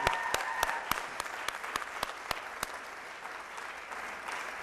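Audience applauding in response to a call for a round of applause. The clapping is loudest at first and thins out to a soft patter after about three seconds.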